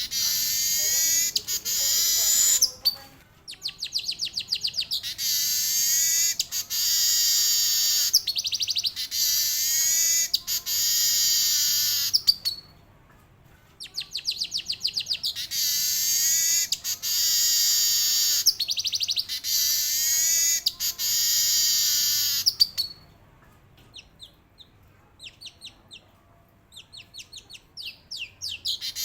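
Male weaver bird (manyar) singing: high-pitched bouts that start as rapid ticking and run on into long, buzzy rolling trills, each lasting several seconds, repeated with short breaks. Over the last few seconds only faint scattered ticks are heard, before a new bout starts right at the end.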